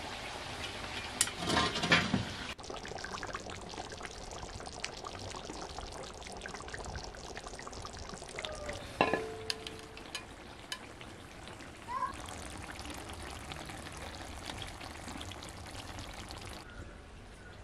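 Dough strips in tomato sauce bubbling and sizzling in a cast-iron pot. A metal lid clatters as it is lifted about two seconds in, and tongs clink against the pot about nine seconds in.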